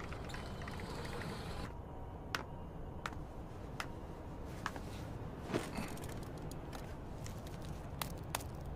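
Quiet, steady background hiss with a dozen or so faint, sharp clicks and taps scattered irregularly through it; the most prominent comes about five and a half seconds in.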